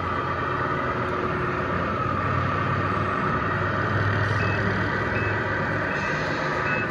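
A 1/14-scale RC semi truck running slowly under load, its sound unit giving a steady diesel-engine hum, over general hall noise. Faint short beeps repeat about once a second in the second half.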